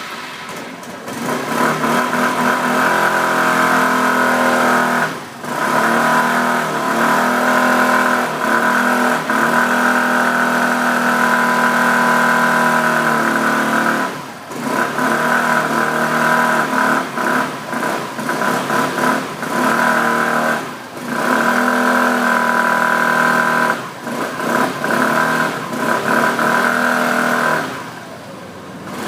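Suzuki Access 125 scooter's single-cylinder four-stroke engine running and being revved, the revs dropping back briefly about five times, with the humming noise that the owner suspects is a fault.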